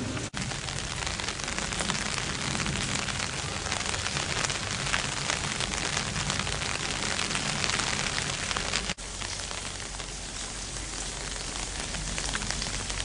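Steady rain falling, an even hiss full of fine pattering crackle. It drops out for an instant twice, once just after the start and once about nine seconds in.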